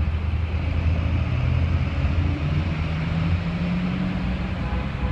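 Car engine and road noise heard from inside a moving car in heavy traffic: a steady low hum over tyre and traffic rush, the engine note rising slightly a few seconds in.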